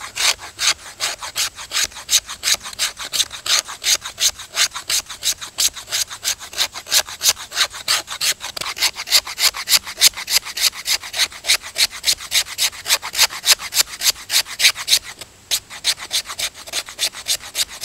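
Squared 90-degree spine of a Mora carbon-steel knife scraping down a fatwood stick in fast, even strokes, about five a second, shaving off fine tinder. The strokes stop briefly about fifteen seconds in, then carry on.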